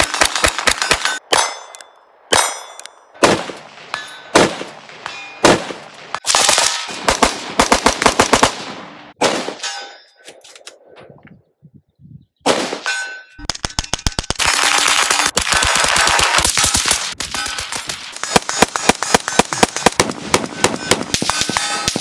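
Gunfire: single shots and fast strings of shots, with steel targets ringing when hit. There is a short lull about ten seconds in, then near-continuous rapid fire toward the end.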